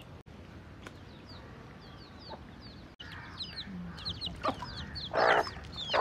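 Hens clucking, with two loud, rough squawks in the second half, over a steady run of rapid high chirps that grows busier about halfway through.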